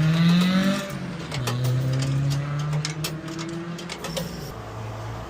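Coin-operated tyre air compressor running: its motor hum climbs in pitch through the first second, then settles to a steady hum, with scattered clicks.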